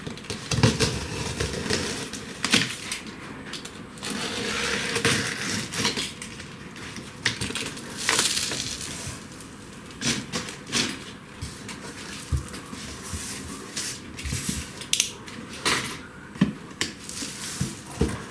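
Unboxing a CNC router: packaging rustling and crinkling as it is opened and pulled apart, with scattered knocks and clicks of parts and packing being handled.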